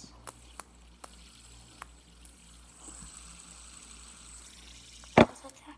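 Fidget spinner spinning between the fingers: a few light clicks in the first two seconds, then a faint whirring hiss with a thin high whine. A single loud thump about five seconds in.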